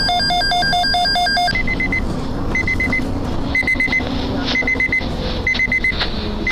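Electronic emergency-alert attention tones. A rapid sequence of alternating beeps at different pitches lasts about a second and a half, then turns into groups of four short high beeps about once a second, which signal the start of a weather warning bulletin.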